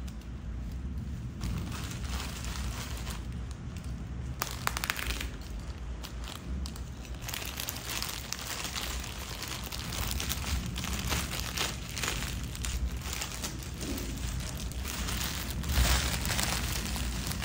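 Plastic packaging crinkling and rustling as it is handled, with scattered small knocks, over a low steady hum.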